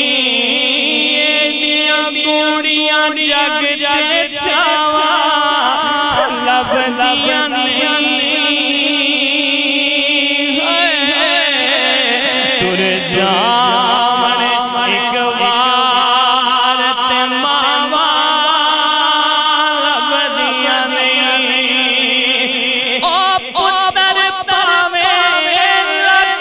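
A man's voice singing a Punjabi devotional song into a microphone: long held, wavering notes with melismatic runs, over a steady low drone.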